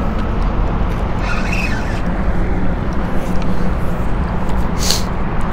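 Steady low outdoor rumble with a short, sharp click about five seconds in.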